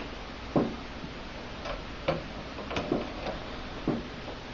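Light knocks and clicks, about seven at uneven intervals of half a second to a second, over a faint steady background hum.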